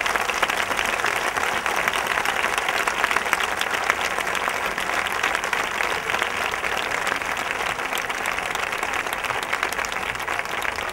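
Large crowd applauding, many hands clapping in a dense, steady wash of claps.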